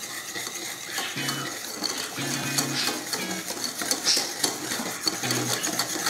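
Metal wire whisk beating sugar into melted butter and salad oil in a bowl, the wires clicking and scraping rapidly against the bowl's sides.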